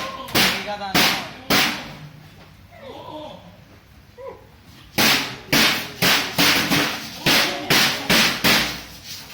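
A string of sharp cracking knocks: three in the first couple of seconds, a pause of about three seconds, then about ten more in quick succession, roughly two a second.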